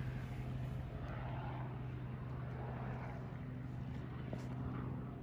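A steady, low engine drone that holds one pitch and fades out near the end.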